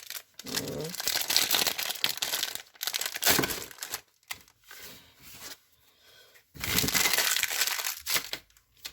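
Foil Pokémon booster pack wrapper crinkling and tearing as it is opened, in two long stretches of rustling with a quieter pause of a couple of seconds between them.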